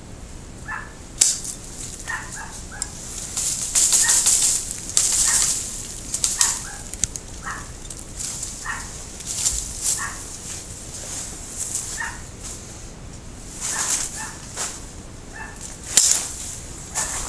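Hand pruning shears snipping Japanese maple twigs with sharp clicks, amid bursts of rustling leaves as the branches are handled. Short animal calls repeat every second or so in the background.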